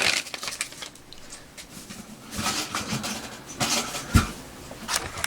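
Rustling and handling noises of cocoa mix packets being opened and emptied into a coffee maker's filter basket, with a soft knock about four seconds in.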